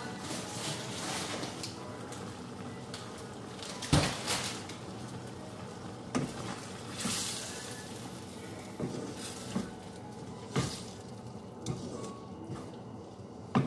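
Tomato sauce simmering in a wide non-stick pan with a steady bubbling sizzle. A wooden spatula knocks and scrapes against the pan several times as the stew is stirred, and a sharp knock about four seconds in is the loudest sound.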